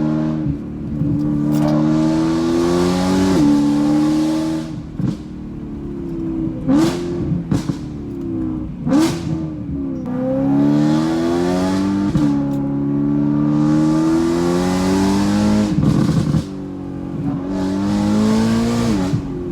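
2013 BMW M3's V8, tuned and running a catless, nearly straight-piped exhaust, accelerating hard through the gears. Its pitch climbs and then drops back at each upshift, seven or eight times, with a sharp crack at most shifts: the pops and bangs of the tune.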